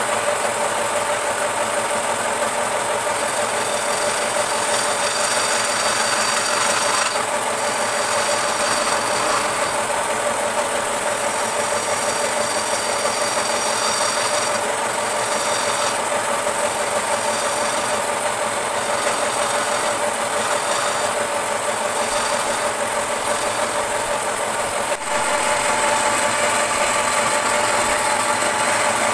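A belt-driven wood lathe runs steadily on its electric motor with a rattle and hum. At times a hand-held turning chisel cuts the spinning wooden vase.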